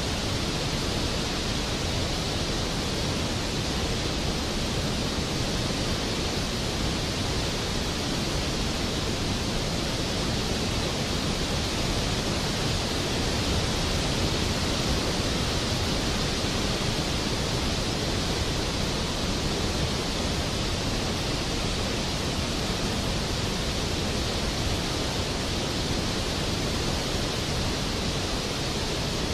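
River water rushing over rocky rapids and small cascades: a steady, unbroken roar of whitewater.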